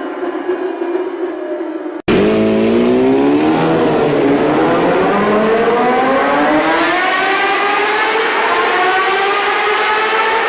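Motorcycle engine sounds. After a sudden cut about two seconds in, a louder engine dips briefly in pitch, then revs up in one long steady climb.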